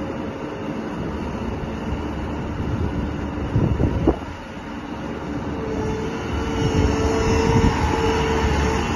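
Bobcat 5610 Toolcat's Kubota diesel engine running as the machine drives and turns. A couple of sharp knocks come about four seconds in. From the middle on, a steady whine joins the engine and it grows louder.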